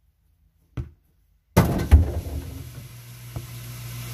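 A football striking a backyard rebound net near the camera: a short knock, then under a second later a loud jolt with two hard hits that rattle and fade, leaving a steady low hum.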